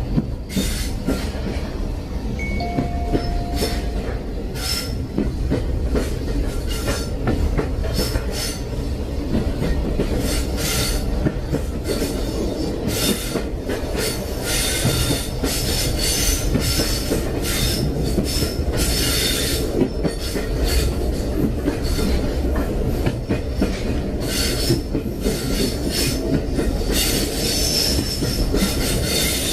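A train running along the rails: a steady low rumble, with irregular high-pitched rattling and squealing from the wheels on the track.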